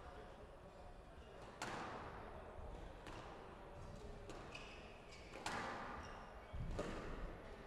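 Squash rally: the ball is struck by rackets and rebounds off the court walls, about five sharp hits roughly a second apart, each ringing on in the large hall.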